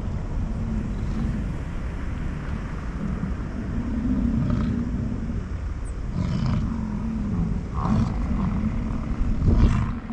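American bison bulls in the rut bellowing, low drawn-out roars repeated again and again as they fight head to head. Several short, sharper sounds break in, the loudest near the end.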